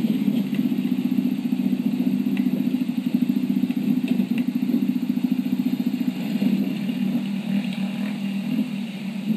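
Dirt bike engine running steadily: a low, pulsing drone that holds an even pitch.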